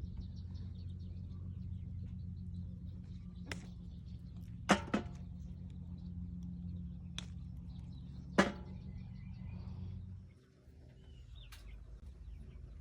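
A steady low hum that stops about ten seconds in, with several sharp clicks or knocks and faint high chirping, which fits chicks peeping.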